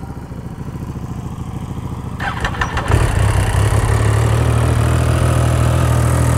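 Triumph Street Triple 675 inline three-cylinder engine, with an Arrow exhaust, being cranked, stumbling and catching about three seconds in, then settling into a steady, louder idle. The rider says it is making a weird noise after being hard to start.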